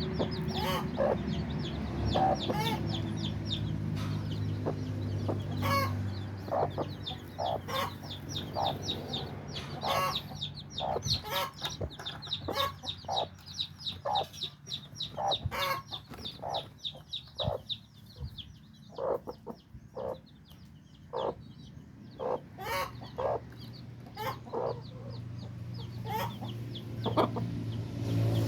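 A brood of week-old chicks peeping in rapid high chirps, many overlapping, with lower clucking calls among them.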